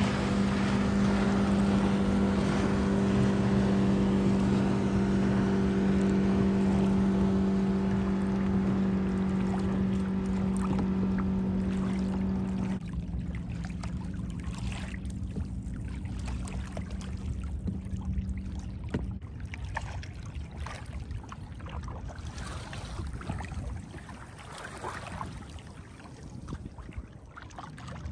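A motor hums steadily at an even pitch for about thirteen seconds and then cuts off abruptly. After that comes water splashing and lapping, with scattered small splashes and knocks.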